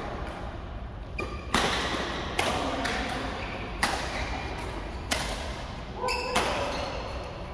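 Badminton rackets hitting a shuttlecock in rallies: about five sharp smacks, irregularly spaced, echoing in the large hall.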